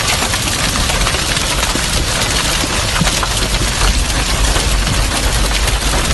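Hail pelting a car's roof and body: a dense, rapid clatter of hailstone hits over a steady low rumble.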